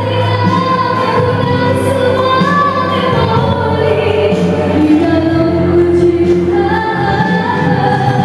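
A young woman singing a pop melody into a handheld microphone, amplified through a PA, over an instrumental backing track.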